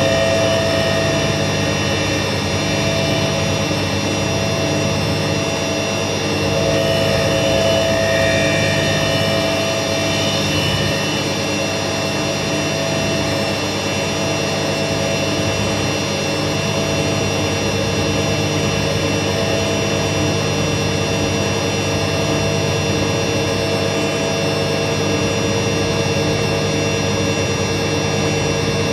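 Bosch Maxx 4 WFC 1200 front-loading washing machine spinning at its top spin speed of about 1200 rpm: the drive motor and drum give a loud, steady whine of several held tones over a rushing noise.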